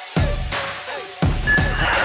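Electronic workout music with a heavy, thudding beat; the bass drops out briefly just after the start.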